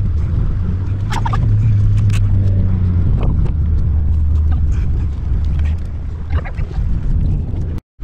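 Vehicle engine running with a steady low drone while driving, heard from inside the cab, with scattered short knocks and rattles. The drone eases a little partway through.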